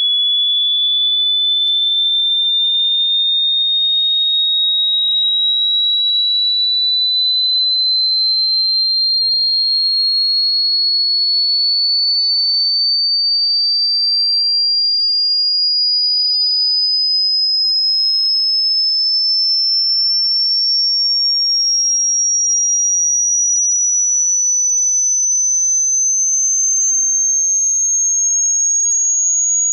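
A single pure test tone gliding slowly and steadily upward in pitch at an even loudness, high and whistle-like: a hearing-test sweep from low to high pitch.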